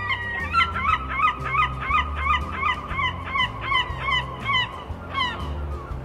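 Herring gull giving its long call: a rapid run of laughing, yelping notes, about three a second, lasting some four seconds, with one more note shortly after.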